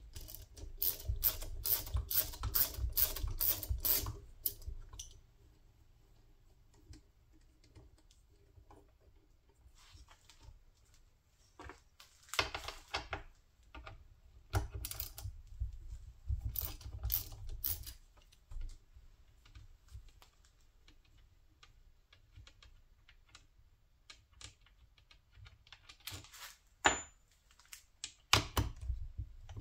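Hand ratchet clicking in several runs of quick clicks as the bolts holding an old drive-by-wire throttle body to a GM LS truck intake are backed out. The longest run comes in the first few seconds, with quiet stretches between the later runs and a sharp knock near the end.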